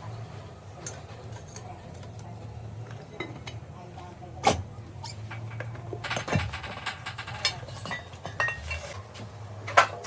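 Metal tools and parts clinking and knocking on a workbench, with a few sharp metallic clinks and a quicker run of ticking in the middle, over a steady low hum.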